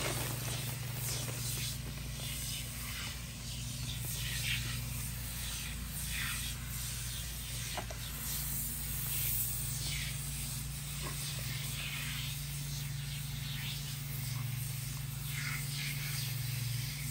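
Aerosol can of Simple Green foam cleaner spraying in repeated short hissing bursts as foam is laid over an aluminum engine block, over a steady low hum.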